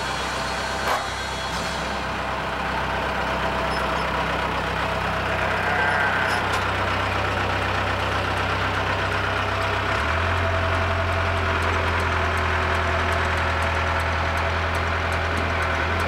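Caterpillar backhoe loader's diesel engine running steadily, with a short knock about a second in; about ten seconds in the low engine note changes.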